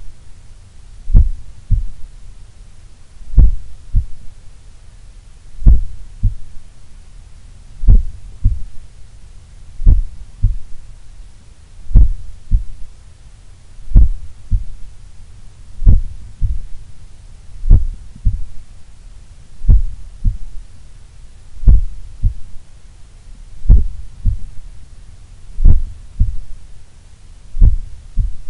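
Slow human heartbeat heard through a stethoscope on the chest: paired lub-dub heart sounds about every two seconds, roughly 30 beats a minute, a very low resting heart rate.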